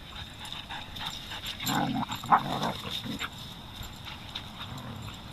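A German Shepherd and a small dog play-fighting, with a short burst of dog vocal noise about two seconds in.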